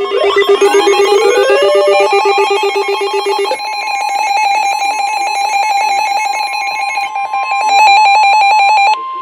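Weather alert radio sounding its warning alarm between broadcasts. Electronic alert tones with rising sweeps give way, about three and a half seconds in, to a loud, fast-pulsing electronic beeping over a steady high tone near 1 kHz, the Weather Radio warning tone that signals a new warning is coming in.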